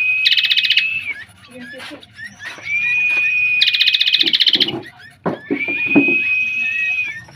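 A songbird singing a repeated phrase: a long, steady, high whistled note, twice joined by a fast buzzy rattle, the phrase coming about every two and a half seconds. Fainter, lower calls or voices come in the middle.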